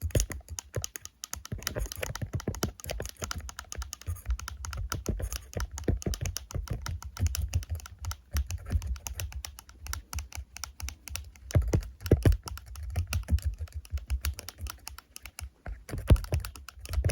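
Fast, irregular tapping and clicking right on the microphone, with heavy low thumps: aggressive ASMR ear-cleaning trigger sounds.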